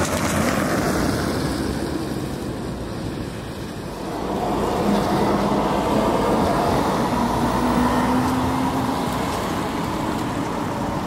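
Street traffic: an electric low-floor tram running along street track, then cars and another tram passing close by. The noise grows louder about four seconds in, with a faint low steady hum among it.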